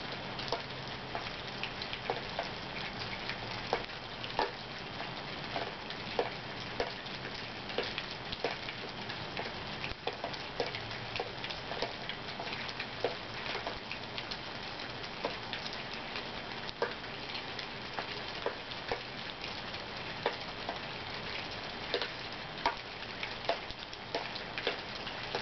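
Steady rain hiss with many irregular drips and taps pattering on nearby surfaces.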